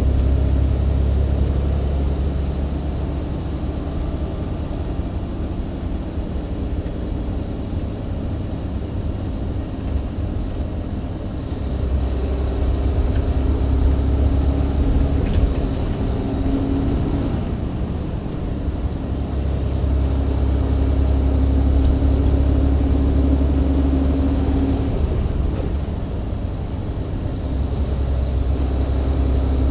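Mercedes-Benz Citaro C2 LE hybrid bus's diesel engine and Voith automatic gearbox heard from inside the cabin under way, a low engine drone that swells in stretches and eases between them, with a steady whine over the louder stretches.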